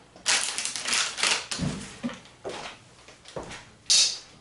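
Thin plastic packaging crinkling as a shredded-cheese packet is picked up and crumpled, in a few uneven bursts, with a sharper crackle near the end.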